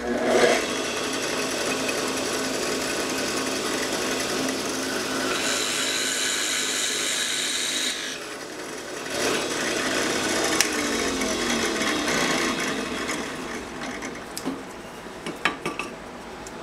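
Drill press running and boring holes into a wooden block with a 7/16-inch bit: steady motor hum with the noise of the bit cutting. The cutting drops out briefly about eight seconds in, starts again, and fades near the end.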